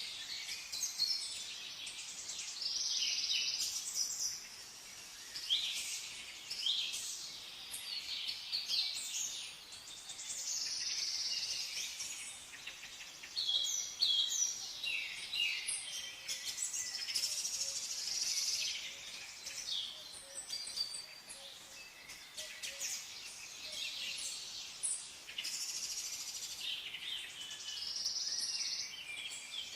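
Several songbirds chirping and singing at once, an unbroken chorus of quick chirps, trills and short whistled notes.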